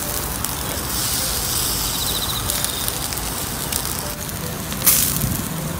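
Olive-oil-marinated shrimp and asparagus sizzling on a wire grill over charcoal, the coals crackling with many small pops. There is a brief louder burst of hissing about five seconds in.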